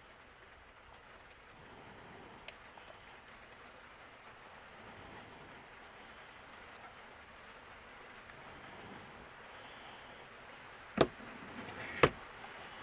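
Two sharp knocks about a second apart near the end, over a faint steady hiss, with a small tick early on.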